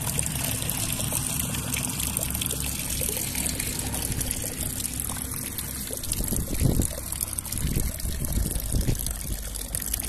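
Water pouring and trickling into a concrete ring tank, splashing onto the water surface, with a few low bumps in the second half.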